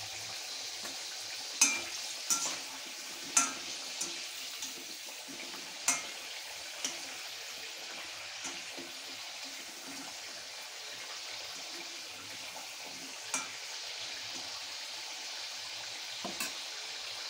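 Halved potatoes deep-frying in hot oil in an iron kadhai, a steady sizzle, nearly cooked through on their first fry. Several sharp clinks ring out now and then as a metal skimmer turns them against the pan.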